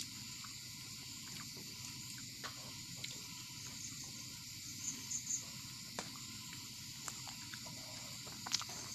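Quiet hand-eating sounds: roti being torn by the fingers on a steel plate and mouthfuls of roti with semolina being chewed, heard as a few soft clicks and smacks, a small cluster about halfway through and a sharper one near the end. A steady high hiss runs underneath.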